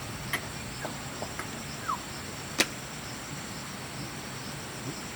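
Insects trilling steadily in a high, even pulsing band, with a few sharp clicks or taps over it, the loudest about two and a half seconds in, and a short rising peep near two seconds.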